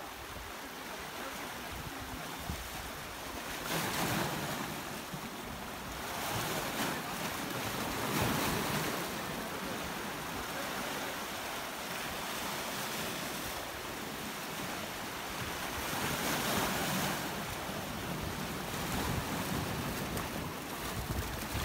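Sea waves washing in over the boulders of a rock seawall, a steady rush of surf that swells every few seconds, loudest about eight seconds in, with wind on the microphone.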